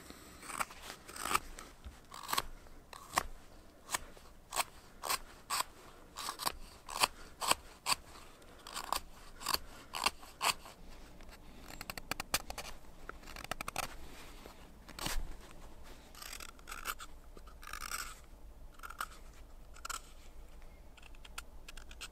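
Carving knife shaving slices off a green-wood kuksa blank: crisp cuts one or two a second through the first half, then quicker, softer paring strokes.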